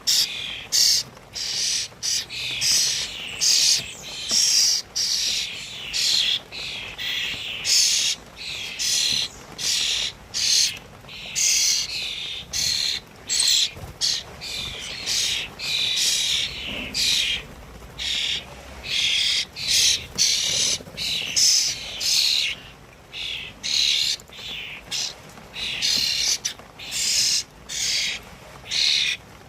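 Small songbirds chirping and twittering in a dense, continuous run of short high notes, broken by brief pauses.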